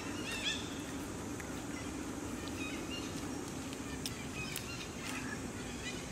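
A few short, high animal chirps and squeaks over steady background noise with a low hum, the clearest cluster about half a second in and more scattered ones later on.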